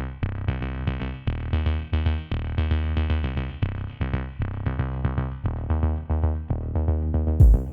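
Electronic background music with a steady beat and bass notes; a cymbal-like crash comes in near the end.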